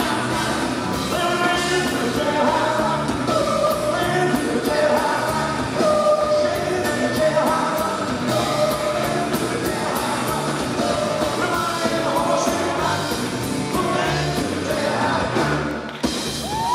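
Live 1950s-style rock and roll music: several voices singing in harmony over a band with a steady drum beat and electric guitars. The recording dips and jumps briefly near the end.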